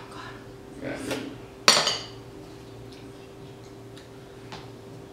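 Cutlery clinking against a bowl during a meal: a few sharp clinks, the loudest a little under two seconds in.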